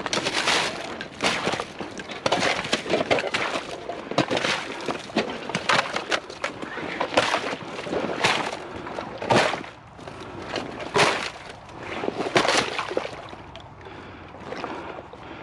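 Thin ice on swamp water breaking up under a small boat pushing through it: a run of irregular sharp cracks and crunches, about one or two a second, with sloshing water.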